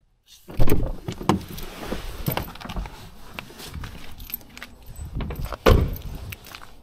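Getting out of a car with a handheld camera: rustling and jingling of keys, several knocks and thumps, the loudest about half a second in and another near the end, then footsteps on asphalt.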